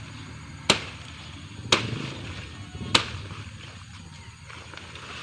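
Three sharp chopping strikes of a blade into the wood of a fallen tree's branch, about a second apart, as the hard wood is cut through by hand.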